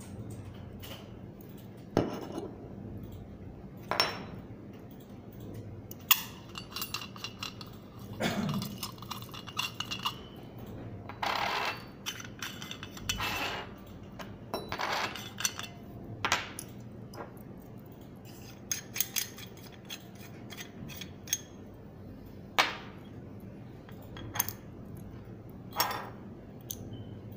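Metal pieces of a zinc alloy herb grinder clinking and knocking as it is taken apart and its parts are set down on a wooden table, with a few short scraping, rattling stretches between.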